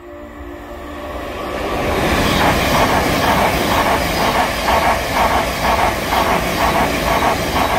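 Thameslink Class 700 electric multiple unit passing through a station at speed. A rushing noise of wheels and air builds over the first two seconds, then settles into a steady clatter of wheels on rail at about two to three beats a second.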